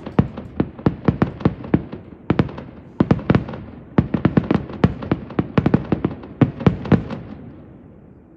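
Aerial fireworks going off in a rapid barrage of sharp bangs, several a second, that stops about seven seconds in and trails off into a fading rumble.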